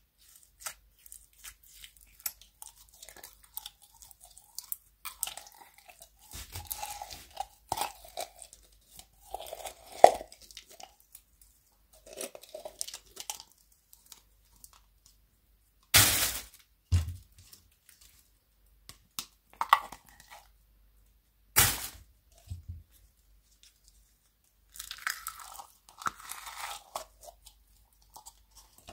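Slime being pulled by hand out of plastic jars: irregular sticky crackling and squelching, with a few louder sharp snaps or slaps, the strongest about halfway through and again several seconds later.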